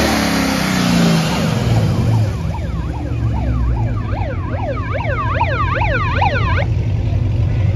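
V8 muscle cars idling past with a steady low rumble. From about two seconds in, a rapidly warbling electronic siren sweeps up and down for about four seconds, then cuts off.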